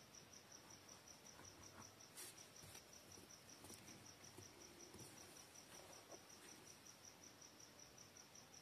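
Near silence with a faint cricket chirping steadily, about four pulses a second, and a few soft scratches of a ballpoint pen writing on paper.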